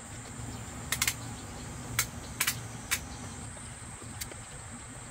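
Plastic welding helmet shell and headgear clicking and knocking as the helmet is pulled on over the head: about five sharp clicks between one and three seconds in, some in quick pairs. A steady low hum and a steady high thin whine run underneath.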